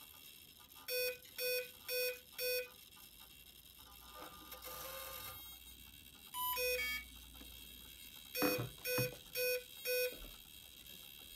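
Kontronik Kolibri 140 LV ESC beeping through the Pyro 650 motor during its teach-in to the transmitter's pitch stick. It gives four short beeps about half a second apart, then a two-tone beep, then four more beeps. A couple of clicks come in among the last beeps.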